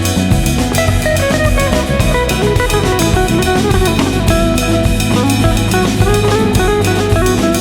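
Background music: guitar over a steady drum-kit beat.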